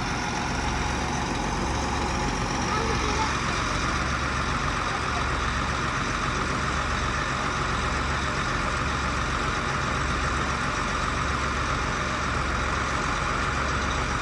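Heavy farm machinery engine running steadily at a constant speed.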